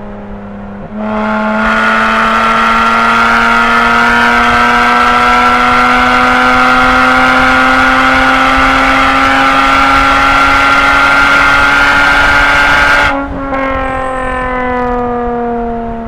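Toyota Camry V6 with a straight-pipe exhaust, pulling at full throttle. About a second in it suddenly gets louder, and the engine note climbs slowly and steadily for about twelve seconds. Near the end the driver lifts off and the note falls away.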